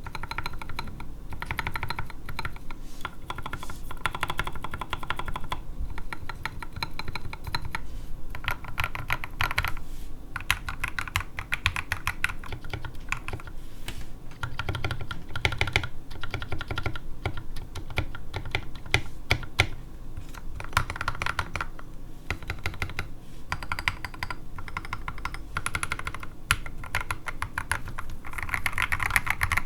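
Mechanical keyboard keystrokes in quick succession: lubed and filmed Everglide Sakura Pink linear switches bottoming out under SA-profile ABS keycaps in a resin-cased, foam-dampened 60% keyboard.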